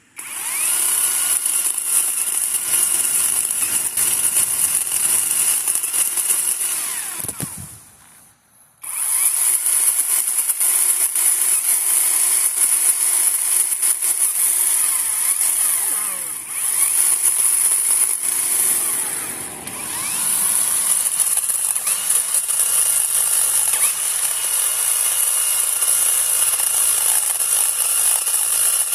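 Chainsaw running at full speed. About a quarter of the way in it winds down and stops, then starts again a second later. Its speed dips briefly twice as it bogs in the wood, which it is not cutting well.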